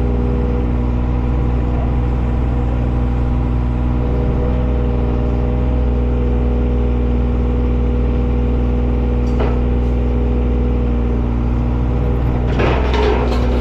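John Deere 35G mini excavator's diesel engine running steadily, with a single clank about nine seconds in and a short cluster of clanks and rattles near the end.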